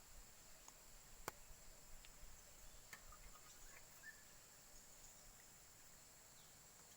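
Near silence, with a few faint clicks, the sharpest just over a second in.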